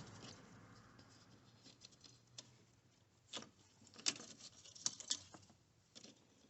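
Scattered light clicks and taps of metal on metal, a few short ones each second, as the negative battery cable clamp is worked onto its terminal post.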